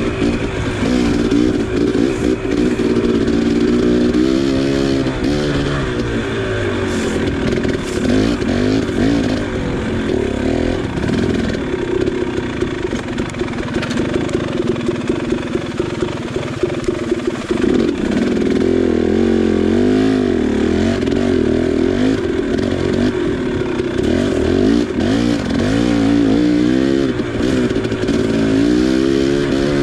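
KTM 300 XC two-stroke single-cylinder dirt bike engine under way, its pitch rising and falling over and over as the throttle is worked, with scattered clicks and clatter.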